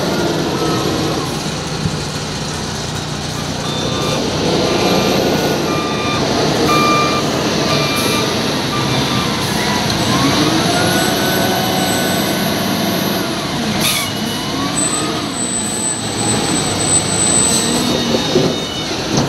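LiuGong 848H wheel loader's diesel engine running close by, its revs rising and falling as it manoeuvres. Its reversing alarm beeps about once a second for several seconds early in the stretch.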